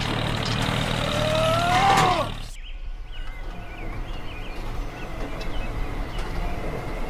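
Tractor engine running with a rising whine as the tractor pulls up the ramp. It cuts off suddenly about two and a half seconds in, leaving quieter background with faint bird chirps.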